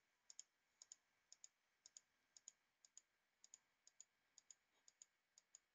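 Very faint computer mouse clicks, a press-and-release pair about twice a second, from clicking the video player's frame-step button.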